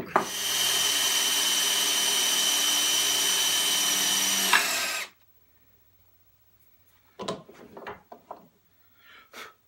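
Power drill running steadily for about five seconds as it drills out the back part of a pipe-clamp pipe, then stops suddenly; a few short knocks and clicks follow near the end.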